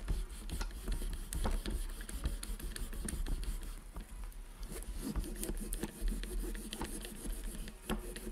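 Oil-dampened cloth rag rubbed back and forth between the thread tension discs of a Singer 401A sewing machine, a dense run of irregular scrapes and small clicks over a low rumble, as old gummed oil is polished off the discs.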